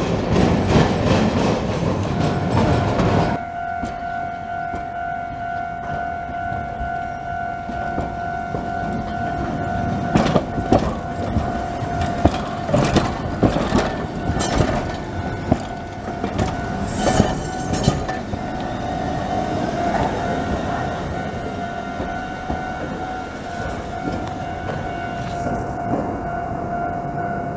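Osaka streetcars running on street track: a tram's wheels click sharply over the rail joints and crossings as it passes close. A steady high tone sounds under most of it.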